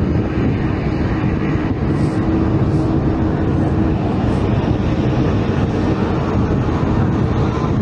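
Steady low rumble of a small high-wing single-engine propeller airplane's piston engine at low power as it comes in to land.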